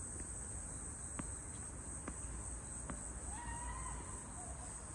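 Insects trilling in a steady, unbroken high-pitched drone, with two faint knocks about a second apart midway.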